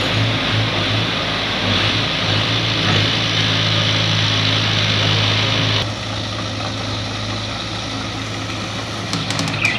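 Kobelco crawler excavator's diesel engine running steadily as the machine drives on its tracks. About six seconds in the sound drops to a quieter engine hum.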